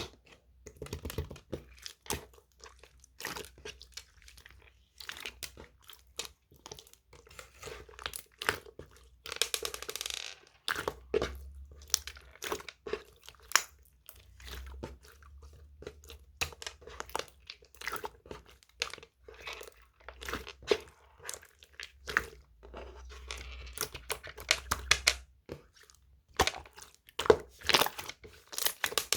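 Yellow slime being worked by hand: many short sticky clicks and crackles in quick succession, some louder than others.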